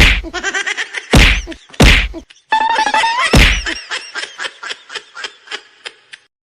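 Four heavy whacks, with pitched tones between them, followed by a fast run of taps, about five a second, that fade away.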